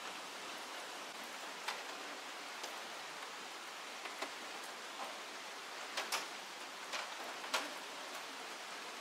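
A steady hiss with about nine sharp clicks and pops scattered through it. The loudest come about six seconds in, a pair close together, and again near the end.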